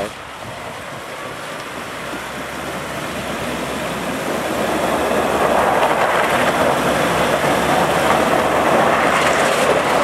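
Nissan Navara pickup wading through a shallow river in first gear and four-wheel drive: engine running and water splashing around its tyres. The sound grows steadily louder as the truck comes closer.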